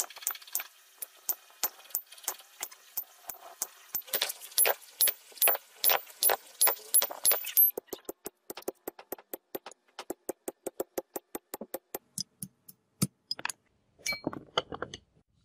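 Hand hammer striking hot iron on an anvil: a steady run of ringing blows, about three a second. After about eight seconds a quicker, lighter run of strikes follows, about five a second.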